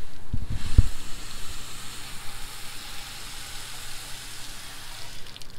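Garden hose spray nozzle spraying water onto a car's body, a steady hiss that is strongest for the first couple of seconds and then eases. A few low bumps sound under a second in.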